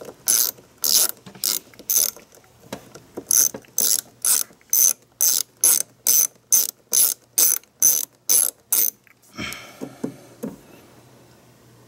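Ratchet with an 8 mm socket clicking in quick repeated strokes, about two to three a second with one short pause, as a small fastener on the ignition coil is backed out. The clicking stops about nine seconds in, followed by a few soft handling knocks.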